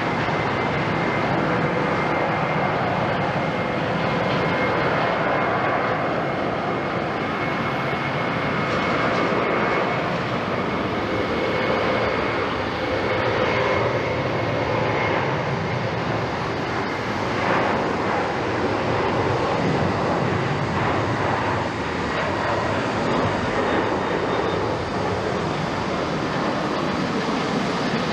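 Boeing 767-300ER's twin jet engines at takeoff thrust as the airliner rolls down the runway and lifts off: a steady, dense rush with a faint high whine over it.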